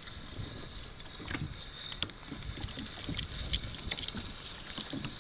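Water slapping against a kayak's hull, with wind on the microphone and a quick run of small clicks from the conventional fishing reel being handled, a little past the middle.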